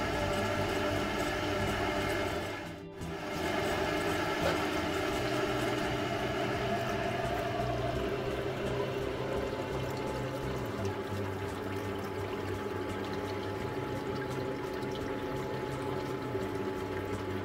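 Water running off a miller table and splashing into the plastic tub beneath it, with more water poured into the tub partway through to top up a sump that is too low. Background music plays along.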